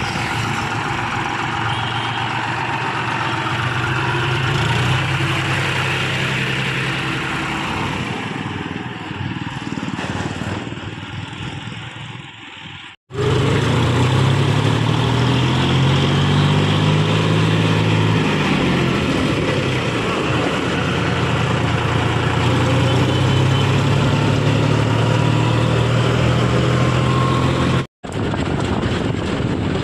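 John Deere tractor engine running under way, its pitch rising and falling in places. The sound fades down shortly before the middle and cuts out twice for a moment.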